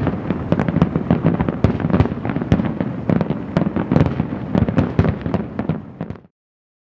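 Fireworks display: a dense barrage of bangs and crackling that cuts off suddenly about six seconds in.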